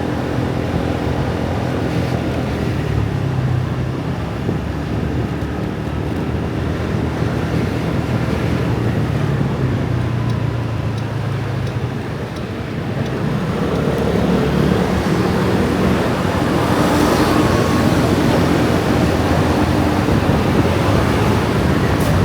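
Traffic of many motor scooters and motorbikes passing in a dense stream: a steady, overlapping engine drone that grows louder about two-thirds of the way through.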